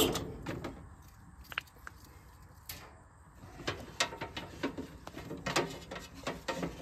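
The dump trailer's electric hydraulic pump motor cuts off right at the start. Then come scattered light clicks and knocks as cables and plugs are handled inside the metal pump-and-battery box.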